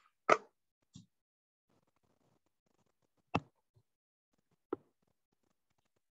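A few separate knocks and clicks of handling close to the microphone: four short strikes in about five seconds, the first the loudest.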